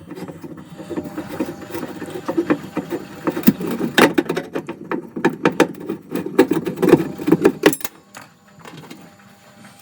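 Screws being worked loose from the heater element and fan housing inside a Hotpoint HAE60 oven: a busy run of small metallic clicks, scrapes and rattles, quietening near the end.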